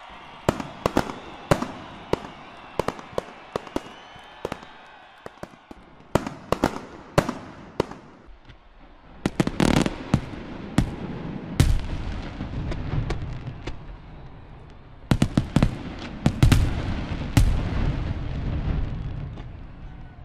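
Aerial fireworks going off: a quick run of sharp bangs and crackles, then heavier booms with a low rumble about nine seconds in and again about fifteen seconds in, dying away near the end.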